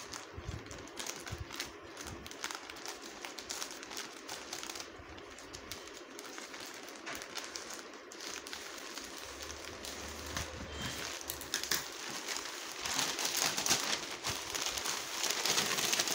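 Plastic courier mailer crinkling and rustling as it is cut open with scissors and pulled apart by hand, with many small clicks; the crinkling gets louder near the end as the bag is opened up.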